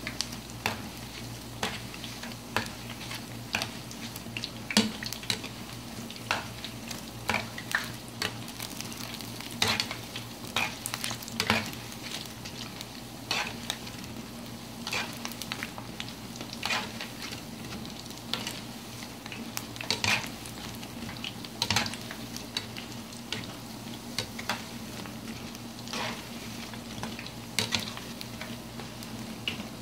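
Dough balls deep-frying in hot oil with a steady sizzle, while a spoon stirs them, clinking and scraping against the pan at irregular moments.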